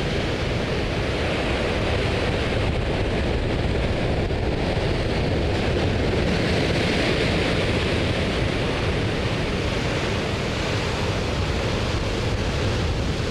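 Heavy ocean swell breaking against coastal rocks: a deafening, continuous rush of surf, with a bigger wave crashing louder about seven seconds in.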